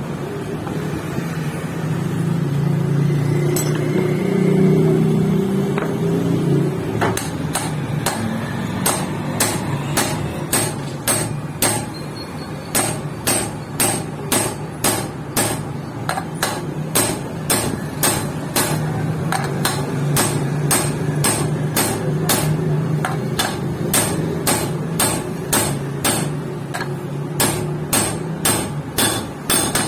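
Hammer striking metal in a steady run of sharp ringing blows, about two a second with short pauses, starting about seven seconds in. Before that, a steady low machine hum.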